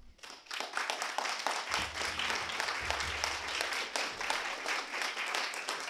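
Audience applauding, many hands clapping together, building up in the first second and then holding steady.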